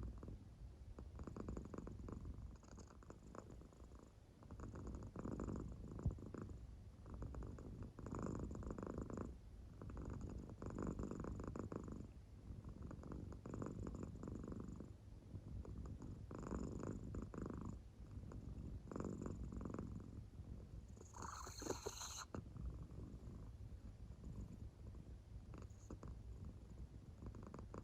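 American Shorthair cat asleep, purring and softly snoring in slow, rhythmic breaths, a low rumble with each breath every second or two. A single tick about six seconds in, and one brief sharper sound about three quarters of the way through.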